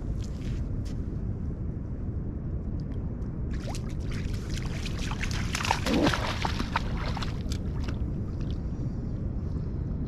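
A Finnish Lapphund dog splashing through shallow river water. The splashing builds a few seconds in, peaks a little past the middle, then dies down, over a steady low rumble.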